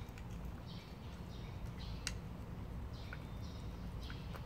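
A mackerel tabby street cat crunching dry kibble, about two crunches a second with a few sharp clicks, over a steady low rumble.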